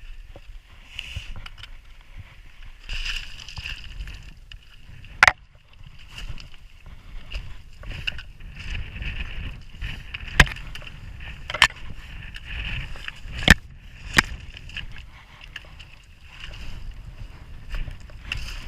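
Wind buffeting the microphone with a low rumble, over the scuff and crunch of footsteps on a rocky mountain path, with five sharp knocks or clicks in the middle of the stretch.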